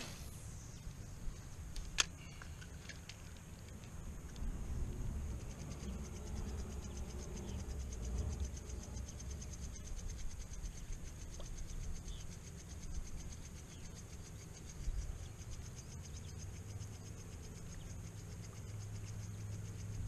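Wind rumbling on the microphone and small waves slapping against a kayak hull, under a high, steady insect buzz that pulses quickly. A single sharp click comes about two seconds in.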